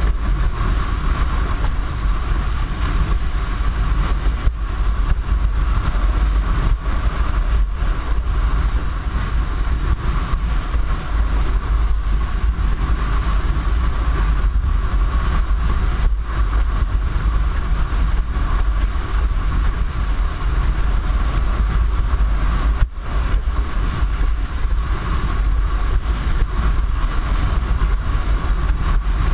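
Strong wind rumbling on an action camera's microphone as a windsurfer sails at speed in a force 4-5 breeze, with water rushing under the board and a steady hum running through it.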